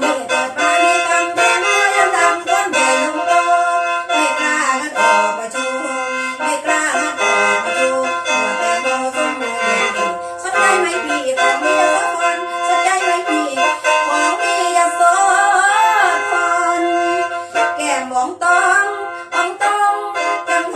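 Khaen, the Isan bamboo free-reed mouth organ, playing a lam toei introduction: a melody over steady held drone notes.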